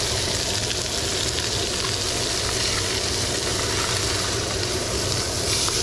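Silver (coho) salmon fillet sizzling steadily as it cooks on a hot grill.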